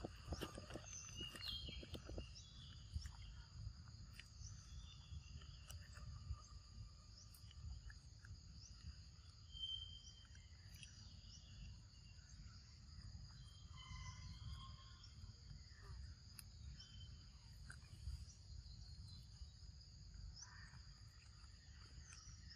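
Faint, steady high-pitched insect chirring over a low rumble, with a few short chirps scattered through and some soft clicks in the first couple of seconds.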